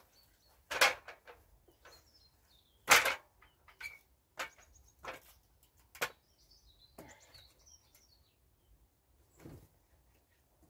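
Irregular knocks and clunks from a ladder and metal parts being handled, the loudest about three seconds in, with small birds chirping faintly in between.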